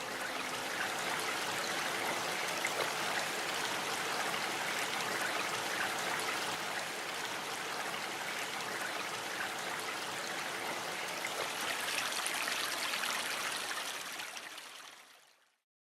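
Steady rush and trickle of running water, like a stream, with the last note of pan-flute music dying away at the start; it fades out near the end.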